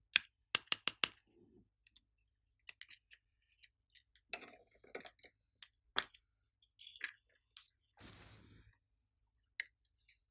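Glossy slime being mixed and squeezed by hand, giving scattered sharp clicks and pops, with a quick run of four near the start and a brief soft rustle near the end.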